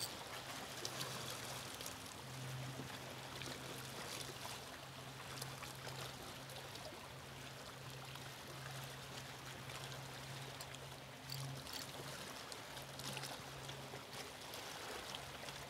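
Small waves lapping and splashing against shoreline rocks, with a low steady hum beneath.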